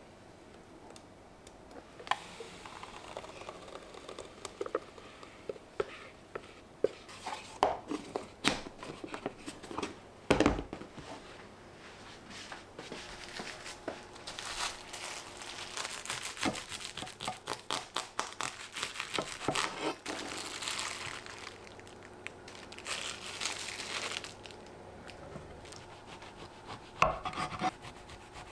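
Kitchen food-preparation sounds: scattered clicks and knocks of utensils and dishes, with one louder knock about a third of the way in, then a stretch of dense rubbing and scraping.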